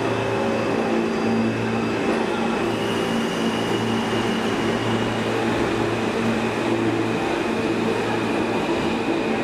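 R46 subway train pulling out of the station: a steady loud rumble of its motors and wheels with humming tones, and a thin high whine for a few seconds in the middle.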